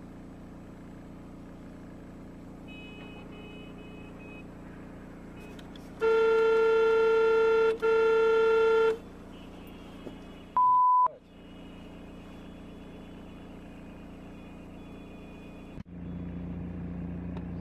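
Steady low vehicle hum heard from inside a car. About six seconds in, a car horn sounds in one long blast, broken once for a moment, lasting about three seconds. Then a single short electronic beep follows a couple of seconds later.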